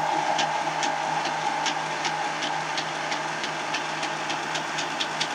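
Celeritas high-speed 3D printer running a box print at 800 mm/s and 50,000 mm/s² acceleration: a steady motor whine with a sharp tick about two and a half times a second as the toolhead changes direction, the ticks coming faster near the end.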